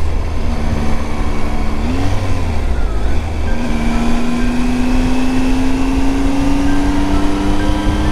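Triumph Tiger 800's three-cylinder engine running while riding, over a heavy rush of wind and road noise. The engine note holds steady, wavers briefly, then climbs slowly and evenly over the last four seconds as the bike speeds up.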